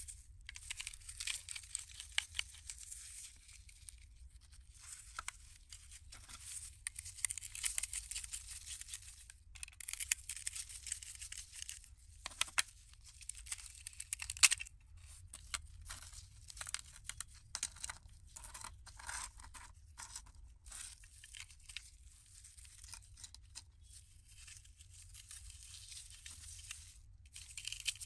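Scratchy scraping and rustling as gloved hands work a die-cast model car's metal body and plastic chassis apart with a screwdriver, with many short scrapes and small clicks and one sharp click about halfway through. A faint steady low hum lies underneath.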